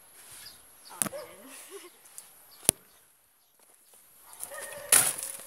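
Dogs barking and whining in short calls, with a couple of sharp knocks from the selfie-stick camera being handled and a loud rustle near the end.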